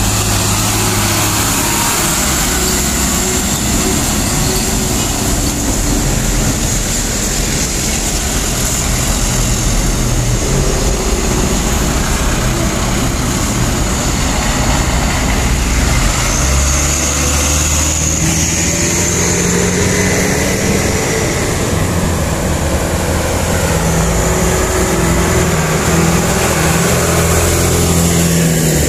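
Diesel engines of loaded sugarcane trucks pulling up a steep grade, passing close by. The low, steady engine note grows stronger and shifts in pitch about halfway through.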